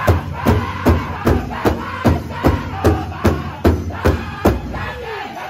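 Powwow drum group singing together over a big drum struck in a steady beat, about two and a half beats a second. Near the end the drumbeats fade and a voice slides down in pitch.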